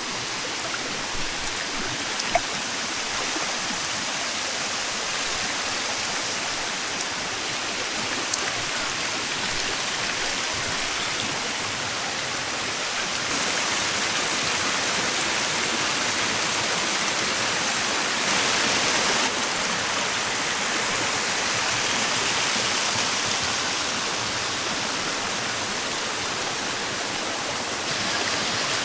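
Steady rush of water from a jungle waterfall's cascades and pools, shifting abruptly in strength a few times, with one short sharp click a couple of seconds in.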